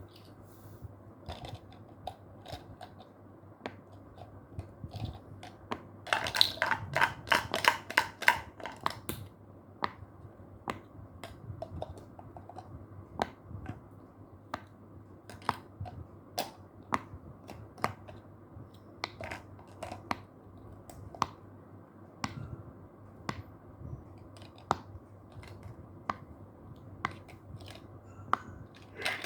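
A series of short, sharp pops, roughly one a second at an uneven pace, with a fast run of many pops about six to nine seconds in.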